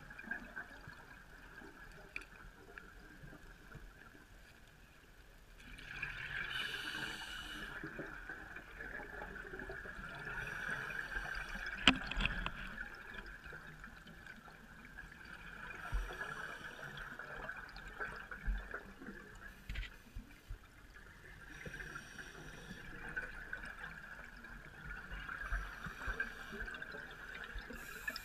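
Scuba regulator exhaust bubbling as a diver breathes out underwater, in bursts about every five seconds, over a steady high tone.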